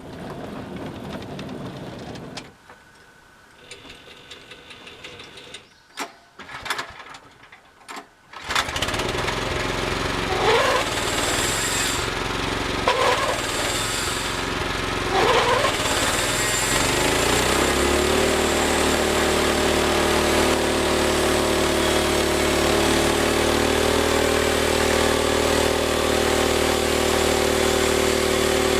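A few clicks and knocks, then a small engine on a homemade band sawmill starts about a third of the way in. It revs up three times in quick succession, then settles into a steady high-speed run.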